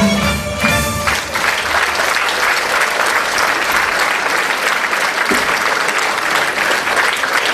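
Folk dance music ends about a second in, and an audience applauds steadily after it.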